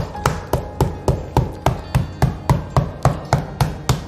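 A wooden bat pounding a whole eggplant to soften it, an even run of knocks, about three or four a second.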